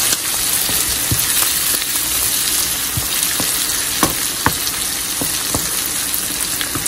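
Sliced onions and cumin seeds sizzling steadily in hot oil in a nonstick pan, stirred with a wooden spoon. A few sharp clicks stand out, the clearest about four and four and a half seconds in.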